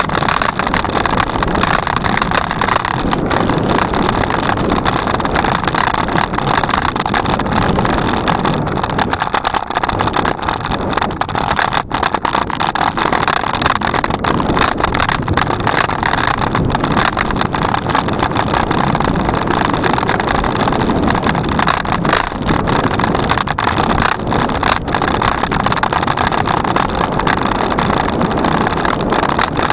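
Steady rushing wind buffeting the microphone of a bicycle-mounted camera while riding, a dense, unbroken noise with a brief lull about twelve seconds in.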